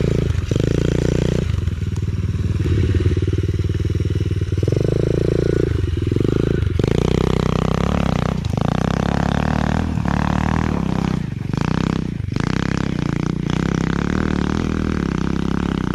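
Small dirt bike engine revving under load as it climbs a steep path, its pitch rising and falling, with the throttle repeatedly closed for a moment and reopened.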